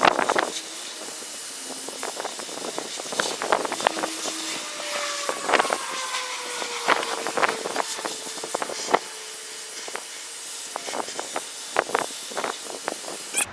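Pet grooming vacuum running with a steady hiss of suction while its nozzle works through a dog's coat, with scattered clicks and rustles and a faint tone that slides down in pitch midway. The hiss cuts off suddenly at the end.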